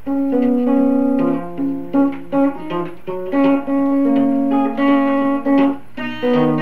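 Guitar played alone, picked notes and strummed chords in a steady run, with no singing. It is an amateur home tape recording from 1959, heard played back off an RCA Sound Tape Cartridge, with a faint low hum underneath.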